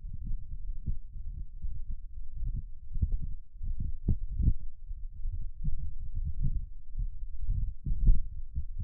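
Wind buffeting the microphone: an uneven low rumble in gusts, with the strongest gust about eight seconds in.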